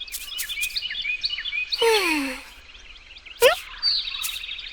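Cartoon soundtrack with steady bird chirping. There are a few sharp clicks near the start, a voice-like sound sliding down in pitch, like a sigh, about two seconds in, and a quick rising sweep about three and a half seconds in.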